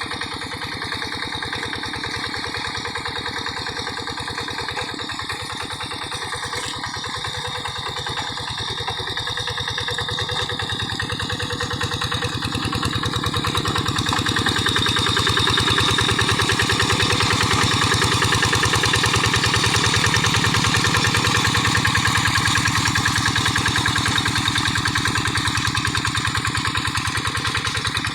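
Quick G1000 hand tractor's single-cylinder diesel engine running steadily with a fast, even firing beat. It grows louder from about a third of the way in and eases off slightly near the end.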